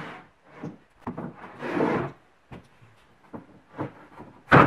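An old oak board being shifted and slid over a wooden workbench: a few scrapes and light knocks of wood on wood, with a louder thump near the end.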